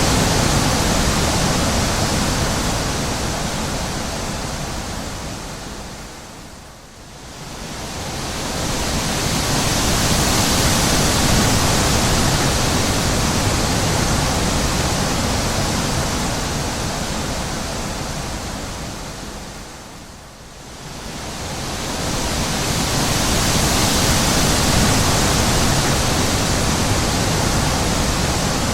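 Wind blowing in a steady rush that slowly fades to a lull and swells back up again, twice: once about seven seconds in, and again about twenty seconds in.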